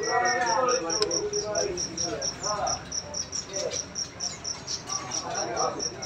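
A steady, high-pitched chirp repeating about four times a second, like a cricket, with a brief murmur of voices near the start.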